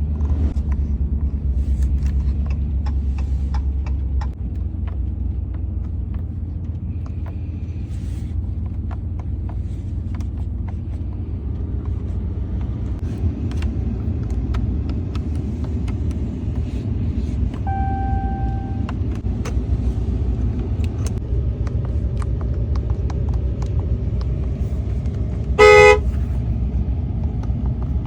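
RAM 1500 Classic pickup's engine running with a steady low rumble. A brief steady tone sounds a little past the middle, and near the end a short, loud vehicle horn honk.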